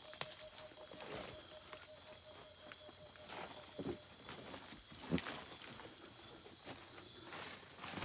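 Night insect chorus of the Amazon rainforest: a steady, high-pitched pulsing trill, with scattered rustles and knocks of someone moving among leaves and vines.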